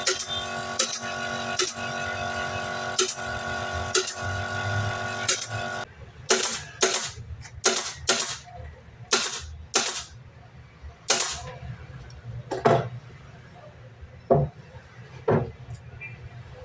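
A machine runs with a steady hum and a sharp click about once a second, then cuts off suddenly about six seconds in. A string of irregular sharp knocks and clicks follows, as of MDF parts or tools being handled on a bench.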